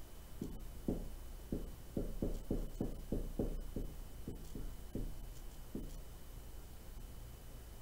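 Marker writing on a whiteboard: a run of short, irregular strokes, busiest in the middle and stopping about six seconds in.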